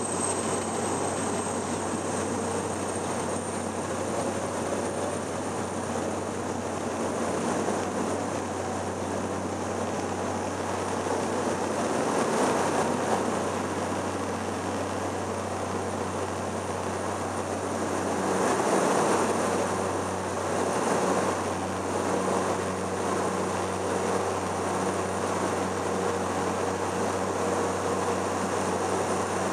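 Cessna 208 Caravan's Pratt & Whitney PT6A turboprop engine and propeller heard from inside the cabin: a steady drone with a thin high turbine whine. The whine rises slightly at the start, and the noise swells briefly twice.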